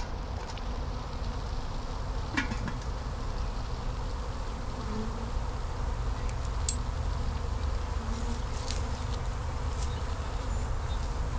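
A mass of Italian honey bees buzzing steadily and agitated, freshly shaken out of a package into a hive. A couple of light knocks come through, one about two seconds in and one near the middle.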